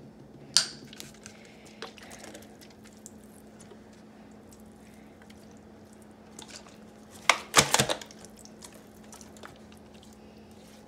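Quiet wet handling of raw ribs in a foil pan as liquid smoke is poured on and rubbed in, with scattered small clicks and a brief cluster of sharp knocks and rustles about seven and a half seconds in. A faint steady hum lies underneath.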